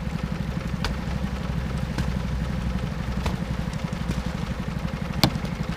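Small gasoline engine of a gold dredge running steadily with a fast low chug, with a few sharp knocks over it, the loudest about five seconds in.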